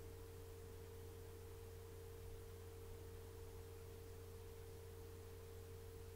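A faint, steady pure tone with a low hum beneath it, unchanging and without any strike or swell.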